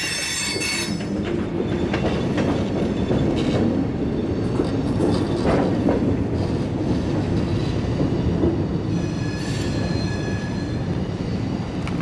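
Freight train of covered hopper cars rolling by with a steady rumble and wheel clicks over the rail joints. High wheel squeal sounds at the very start and again about three-quarters of the way through.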